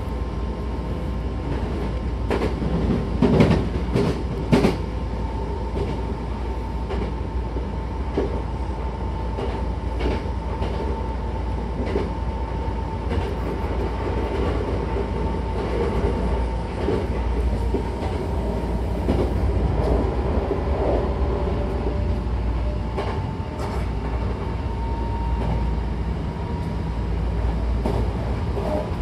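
Hankyu electric train running, heard from inside the passenger car: a steady rumble of wheels on rails with a thin steady whine and scattered rail-joint clacks. A few louder clacks come about three to five seconds in.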